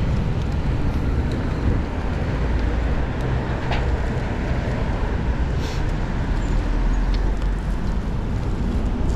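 Steady city traffic noise heard from a moving bicycle: a continuous rumble of passing cars and other motor vehicles, with the low rumble swelling about halfway through as a heavier vehicle goes by.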